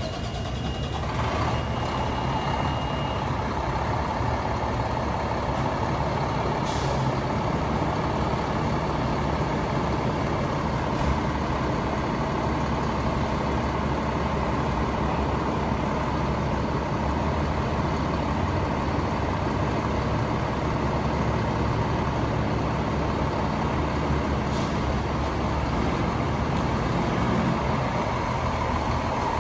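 Fire engine's diesel engine running steadily at idle, with two brief sharp hisses, about a quarter of the way in and near the end.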